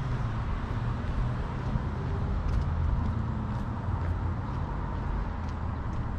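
Steady low rumble of passing street traffic.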